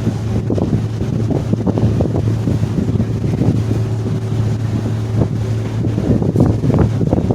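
Steady low hum of the Staten Island Ferry's engines under way, with wind gusting on the microphone.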